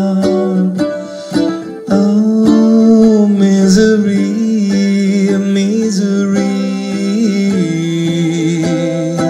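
Ukulele strummed in a steady rhythm, about two strokes a second, with a man's voice holding long sung notes over it.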